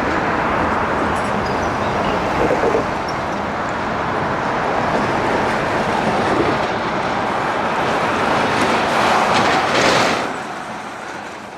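Steady rushing noise of passing vehicles, swelling to its loudest about nine to ten seconds in and then fading.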